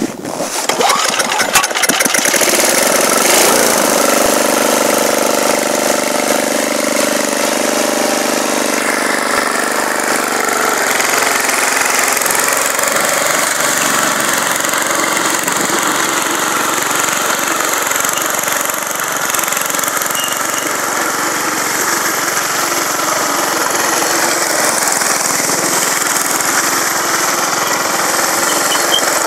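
A 5 HP single-cylinder four-stroke snowblower engine on a homemade tracked motor sled starts about a second in and runs steadily. It keeps running as the sled drives across the snow.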